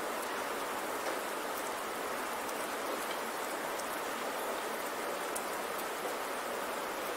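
Steady recorded rain: a continuous even hiss with scattered small drop ticks, used as the audible cover sound of a subliminal affirmation track.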